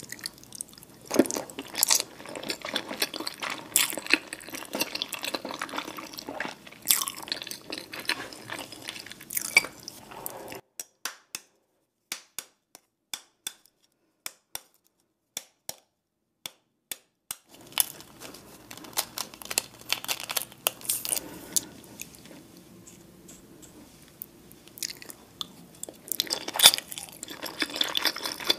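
Wet chewing and biting of boiled egg. In the middle comes a stretch of separate sharp clicks, eggshell being cracked and picked off, before the chewing resumes.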